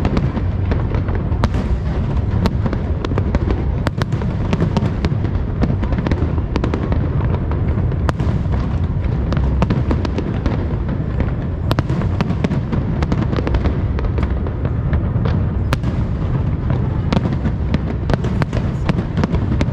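Fireworks going off without pause: a steady low rumble of booms with many sharp cracks and pops scattered throughout.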